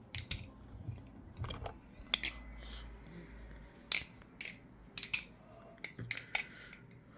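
A metal Kraken 2.5 clone balisong (butterfly knife) being flipped, its handles clicking and clacking shut and open against the blade at an uneven pace, with some quick double clicks.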